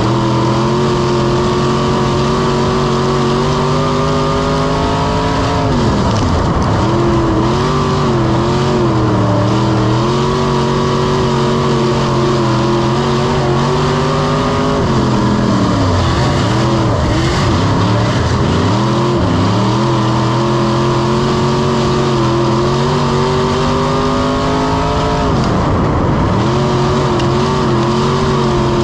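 Dirt-track race car's V8 engine heard from inside the cockpit at racing speed. Its pitch climbs steadily, then drops sharply and wavers three times, about every ten seconds, as the car lifts off for the corners of each lap.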